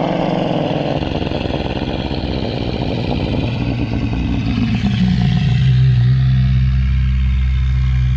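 Made-up Olorotitan dinosaur call: one long, rough roar that settles into a deep, steady rumble about halfway through.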